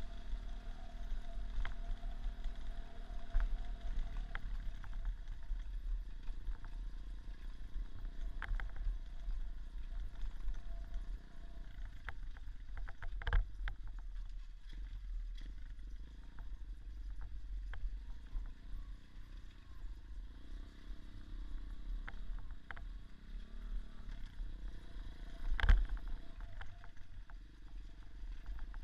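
Small off-road motorcycle engine running as the bike is ridden, its pitch wavering up and down, under a steady low rumble. There are sharp knocks about halfway through and near the end, the later one the loudest.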